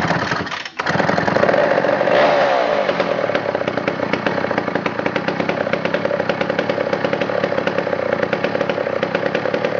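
McCulloch 797 chainsaw, a 123 cc two-stroke, just started. It revs up briefly about two seconds in, then settles into a steady run.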